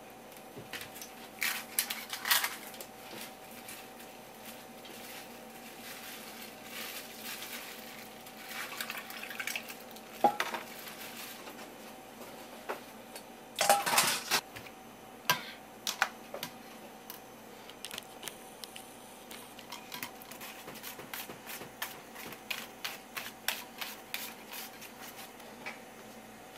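Wire whisk beating egg yolks in a stainless steel pot: quick, even clicks of the wires against the pot. There are also scattered knocks and two louder ringing metal clanks, from bowls being moved and set down.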